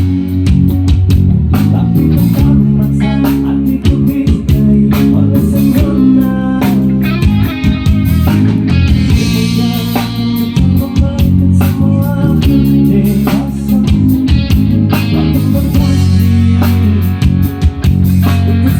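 Loud recorded music with guitar, bass and drums played through a large PA sound system during a sound check, with very heavy bass.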